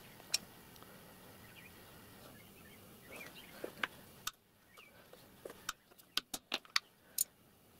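Light clicks and taps of a steel letter stamp being handled and set into a wooden guide block on the metal workpiece: one click near the start, a few more around halfway, then a run of quick ticks near the end.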